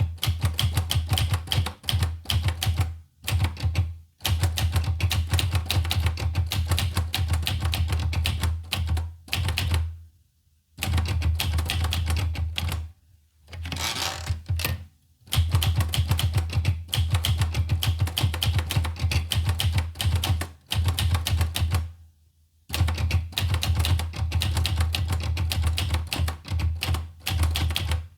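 Olivetti Lettera 25 portable manual typewriter being typed on: rapid key strikes in runs of several seconds, broken by short pauses. Near the middle there is a brief smoother sound without key strikes.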